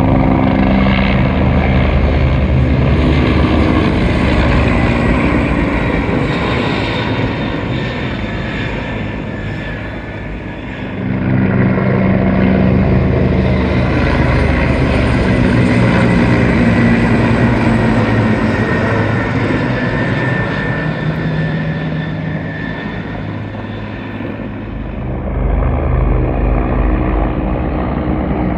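Aircraft engine noise, a steady loud drone that swells twice as it passes.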